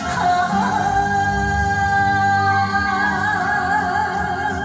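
Japanese song for Nihon buyō playing between sung lines: long held melody notes that waver slowly, over a sustained accompaniment.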